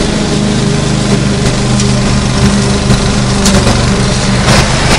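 Lawn mower engine running steadily, a constant engine drone with the noise of the mowing over it, and a brief louder rasp about four and a half seconds in.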